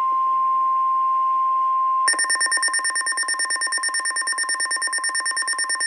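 Weather radio alert: a steady high alarm tone, the 1050 Hz NOAA Weather Radio warning tone. About two seconds in it gives way to a rapid electronic beeping alarm of about five or six beeps a second. The tones signal that a new warning is about to be read.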